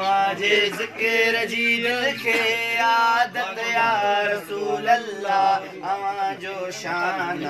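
A man's voice chanting in a melodic style, holding long notes that waver and bend between short breaks.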